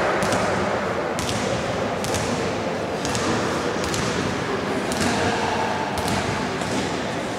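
Basketball being dribbled on a wooden gym floor, sharp bounces about once a second over a steady, echoing hubbub of players and spectators in a large hall.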